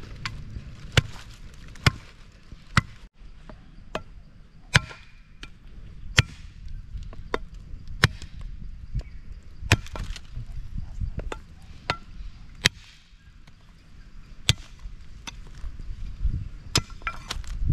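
A heavy blade chopping into a raw buffalo leg and bone on a wooden log: sharp, separate chops at an uneven pace, roughly one every one to two seconds.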